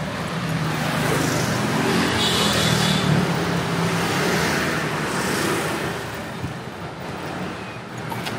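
Street traffic of motorbikes and scooters: engines running and passing close by over a steady hum of traffic, loudest in the first few seconds.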